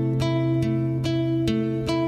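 Background music: a guitar-like plucked string instrument picking single notes a little over two a second over a held bass note.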